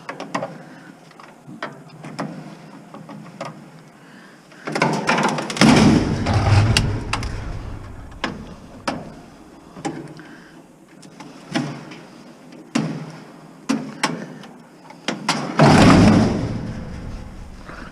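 Clicks and knocks of a panel held on by plastic snaps being pried off an appliance being scrapped. Two louder stretches of scraping and rattling come about five seconds in and again near the end.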